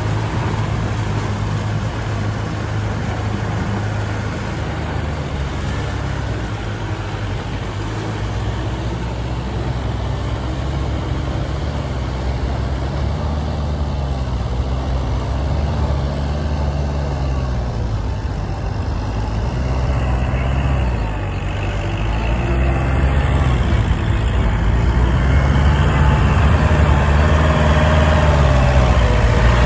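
Kubota farm tractor's diesel engine running under load while tilling a flooded paddy, its pitch rising and falling in slow swells. The engine grows louder over the last several seconds as the tractor drives toward the listener.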